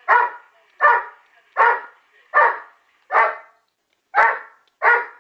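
Working Springer Spaniel barking at a pigeon outside the window: seven short, sharp barks, about one every three-quarters of a second, with a slightly longer pause before the last two.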